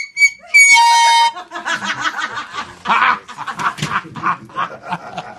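A loud, steady air-horn blast lasting just under a second, then chickens squawking and clucking in a rapid, agitated flurry.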